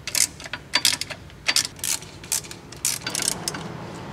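Socket ratchet clicking in short strokes as it tightens the oil pan bolts, a quick uneven run of sharp clicks.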